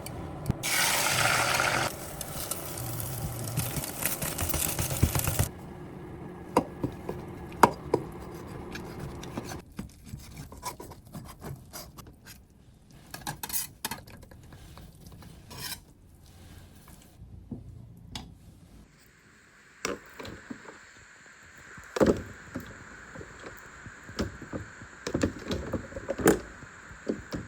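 Kitchen work: dishes and utensils clinking, knocking and scraping, with a loud hissing rush in the first few seconds and a faint steady hum in the last third.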